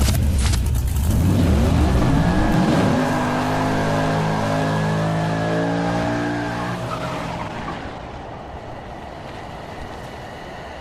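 Car engine revving up, rising in pitch over the first few seconds, holding steady, then fading out about eight seconds in.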